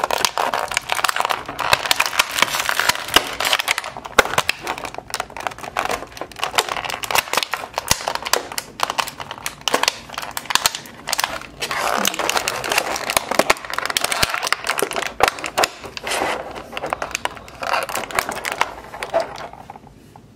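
Clear plastic packaging crinkling and crackling almost without pause as hands work an action figure out of it, dying down near the end.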